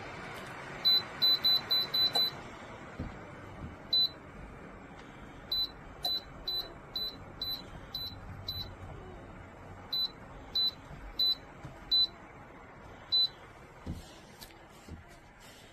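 Short, high electronic beeps from a ceramic space heater's control panel or remote as its buttons are pressed. A quick run of six beeps comes first, then single beeps every half second to second or so, over a steady fan hum.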